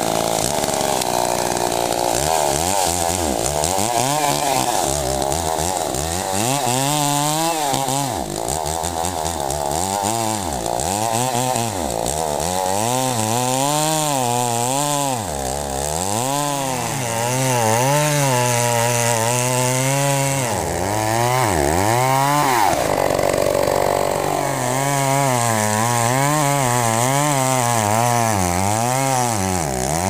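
Two-stroke gas chainsaw sawing a horizontal cut into the base of a thick tree trunk. The engine pitch sags and recovers over and over as the chain bites into the wood and is eased back, about once every second or two.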